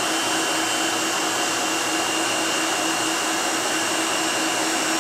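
Electric stand mixer running steadily, beating eggs and sugar into a foam, with a constant motor whine at a reduced speed.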